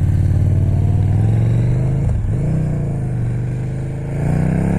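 KTM 1290 Super Duke R's V-twin engine accelerating hard in gear, its pitch climbing, dipping sharply about two seconds in, then climbing again.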